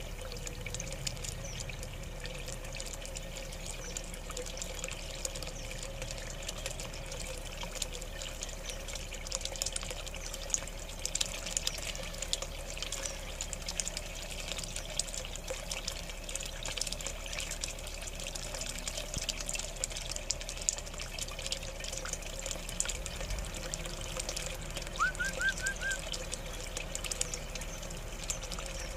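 Water trickling steadily into a small garden pond, with a constant light splashing and crackle. A quick run of short rising chirps comes near the end.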